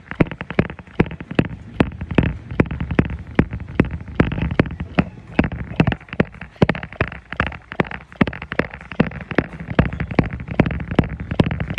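Running footfalls striking a treadmill belt in a steady jogging rhythm, about three steps a second.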